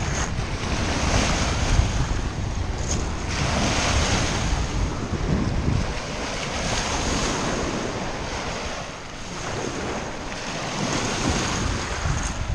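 Small lake waves breaking and washing over a pebble shore, swelling and easing in surges, with wind buffeting the microphone in a low rumble.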